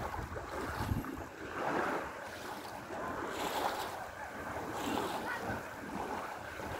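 Small waves washing against a pebble shoreline: a steady watery wash that swells and eases every second or two, with a light breeze.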